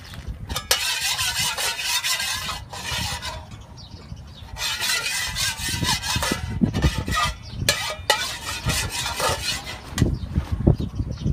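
Oil heating in a metal wok, hissing in two long spells. In the second half, uneven knife knocks on a wooden cutting board.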